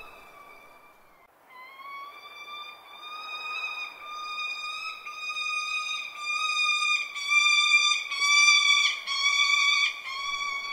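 Falcon calling: a string of long, high-pitched calls held at one steady pitch, following one another almost without a break. The calls get louder and a little shorter towards the end.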